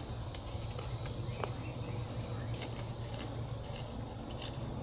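Gerber Principle bushcraft knife shaving feather curls off a thin wooden stick: faint, scattered scrapes of the blade on wood over a steady low hum.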